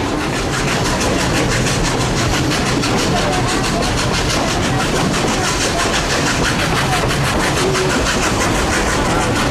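Narrow-gauge steam train on the move, heard as a steady loud running noise with a fast, regular rhythmic beat.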